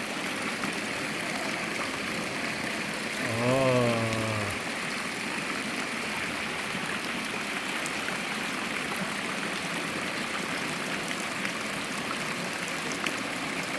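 Steady splashing of running water from garden fountains and water channels. A short spoken voice cuts in about three and a half seconds in.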